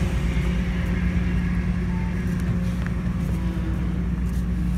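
Steady low engine drone of a small passenger ferry under way, with a strong constant hum.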